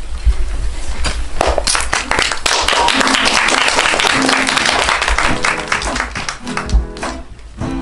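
Hand clapping, then an acoustic guitar starting to strum about five seconds in.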